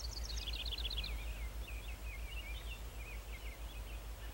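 A songbird singing: a quick run of about ten short notes in the first second, then a looser run of lower chirps and twitters, over a steady low rumble.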